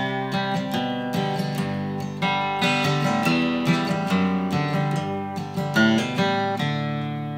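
Steel-string acoustic guitar strummed on its own, an instrumental break with no singing.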